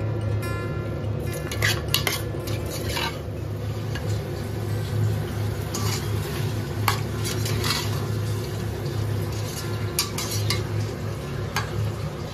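Slotted steel spatula scraping and clinking against the inside of a steel pressure cooker as chicken and onions are stirred, in irregular strokes. A steady low hum runs underneath.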